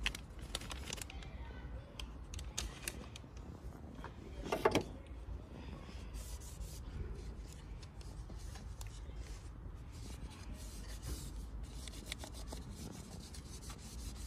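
A tissue rubbing and wiping over a plastic air filter housing frame from a Nissan Qashqai, with small plastic handling clicks throughout and one brief louder handling noise about four and a half seconds in.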